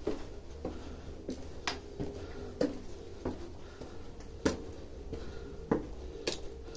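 Footsteps climbing stone steps: about ten sharp taps and scuffs of shoes on rock at an uneven walking pace, over a low steady rumble.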